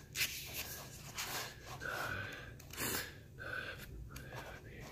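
Soft rustling and handling noise of a paper manual, with breathing close to a phone's microphone.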